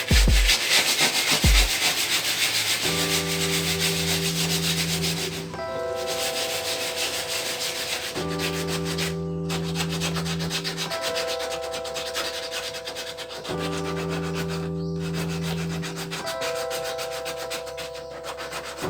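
Continuous abrasive rubbing and scraping of body filler on a car body panel, made of rapid fine strokes and loudest in the first few seconds, over background music with slow chord changes.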